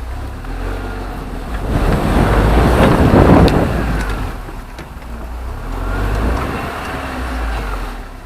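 Niva 4x4 being driven: steady engine and tyre rumble that swells louder about two seconds in and eases off again after about four seconds.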